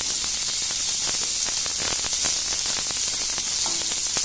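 Green capsicum pieces and chopped garlic sizzling steadily in a little hot oil in a non-stick frying pan. Short scrapes and taps come from the wooden spatula stirring them.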